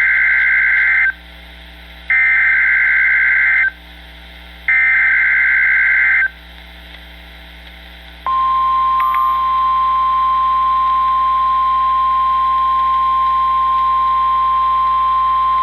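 NOAA Weather Radio Emergency Alert System transmission. It opens with three identical bursts of SAME digital header data, each a harsh warbling screech about a second and a half long with short gaps between them, encoding the alert that follows. About eight seconds in, the single steady 1050 Hz Weather Radio warning alarm tone starts and holds, announcing an imminent Tornado Watch message.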